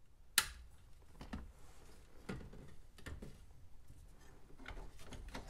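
Light plastic clicks and taps from a car's center dash trim bezel being handled and lined up over the radio opening, with one sharper click about half a second in.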